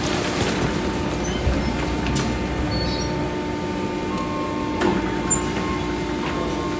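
Garbage truck running with a steady drone, with a few light knocks.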